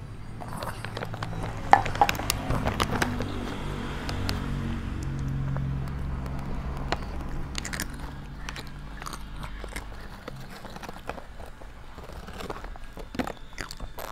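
Toddler crunching and chewing Doritos tortilla chips right at a clip-on microphone, heard as scattered sharp crackles and clicks. A low hum sits underneath and fades after about ten seconds.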